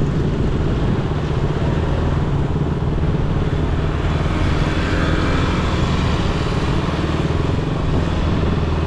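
Motorbike engine running steadily while riding, under a constant rush of road and wind noise.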